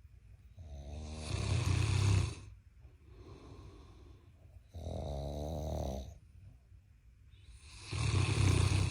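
Loud snoring: three long, rattling snores on the in-breath, about three and a half seconds apart, with quieter breaths out between them.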